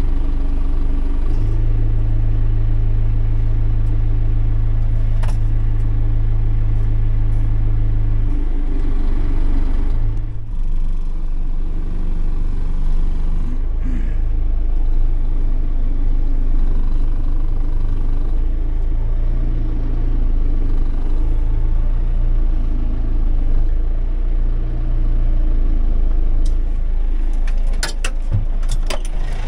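John Deere tractor's diesel engine running, heard from inside the cab, its low note shifting up and down a few times as the tractor is driven. A few sharp clicks near the end.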